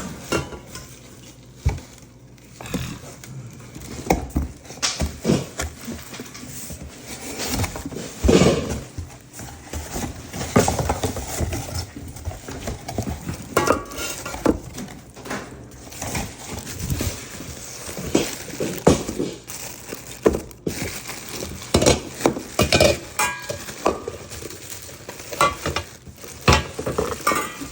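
Stainless steel pots, lids and a steamer insert being handled and set down, clanking and clinking against each other in irregular knocks, some with a short metallic ring.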